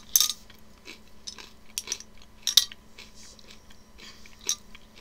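A person chewing a crunchy seaweed rice cracker close to the microphone: a few irregular sharp crunches and clicks, the loudest about two and a half seconds in.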